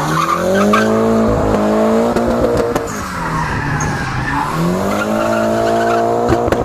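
Nissan Silvia S15 doing a burnout: its Hankook rear tyres screech and hiss in wheelspin while the engine revs climb, sag back and climb again. A few sharp cracks come near the end.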